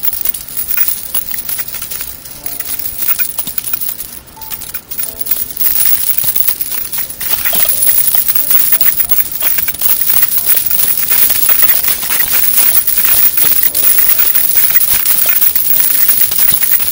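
Dangling earrings jingling and clinking as they are handled right against the microphone: a dense run of light metallic tinkles and clicks that grows louder about halfway through.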